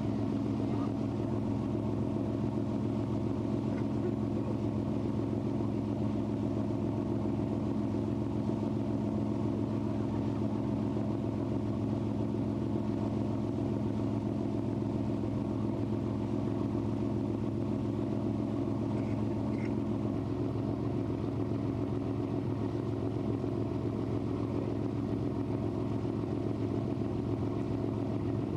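Lake cruise boat's engine droning steadily, heard from on board, a low even hum.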